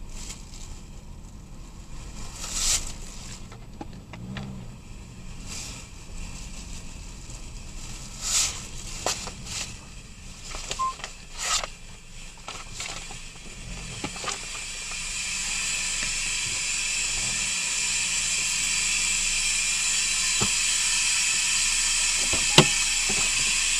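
Scattered clicks and knocks of handling, then a steady hiss that comes in about two-thirds of the way through and holds, with one sharp click near the end.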